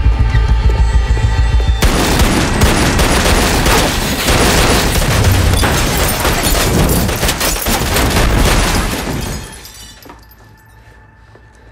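Pulsing tense music cuts off about two seconds in to a sustained volley of gunfire, many shots close together, for some seven seconds. The volley then drops away to a faint background.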